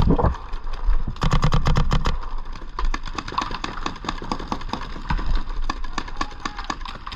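Paintball markers firing in rapid strings of sharp pops. The loudest, closest strings come at the start and again about a second in, followed by a steady patter of shots from across the field.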